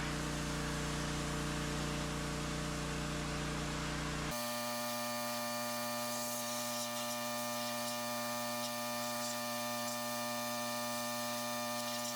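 Steady hum of several constant tones that switches abruptly to a different, higher set of steady tones about four seconds in.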